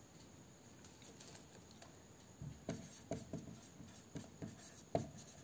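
Marker pen writing on a small whiteboard: faint at first, then a quick run of short strokes and taps from about halfway through.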